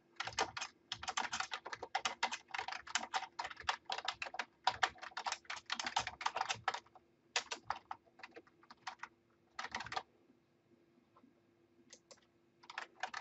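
Computer keyboard typing: quick runs of keystrokes as a line of text is typed, stopping for a couple of seconds near the end before starting again.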